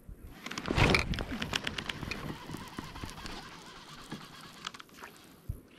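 Baitcasting reel casting: the spool whirs with fine rapid clicking as line pays out, loudest as the cast is thrown and fading as the spool slows over about four seconds.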